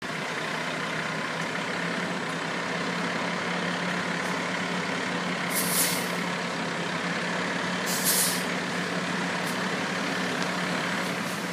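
Seagrave fire engine's diesel running steadily at low speed, with its air brakes hissing briefly twice, about five and a half and eight seconds in.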